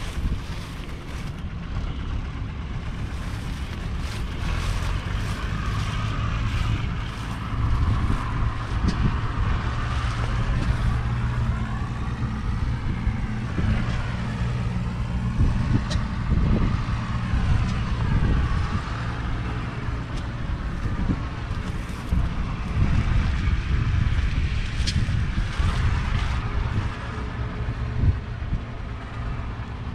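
Allis-Chalmers HD15A crawler's GM 6-71 six-cylinder two-stroke diesel idling steadily.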